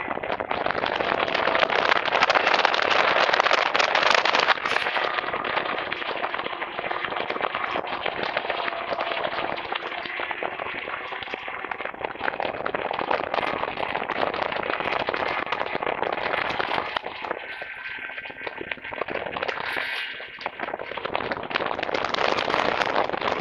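1979 Arctic Cat El Tigre snowmobile's two-stroke engine running hard at speed, a dense crackling exhaust note that eases for a few seconds past the middle and builds again near the end.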